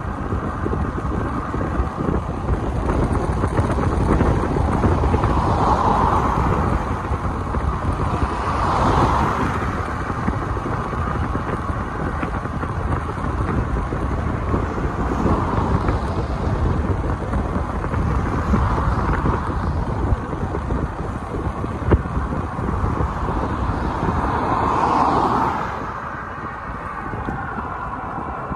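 Wind buffeting the microphone, with traffic on a motorway: about five vehicles pass, each a swell of tyre and engine noise that rises and fades.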